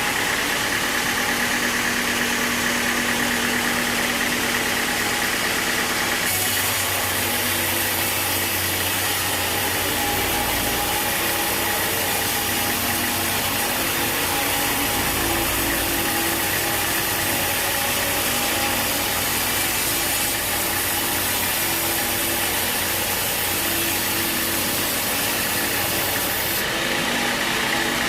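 Sawmill machinery running steadily, an engine-driven hum mixed with hiss. About six seconds in the sound gets brighter and hissier and stays so until near the end.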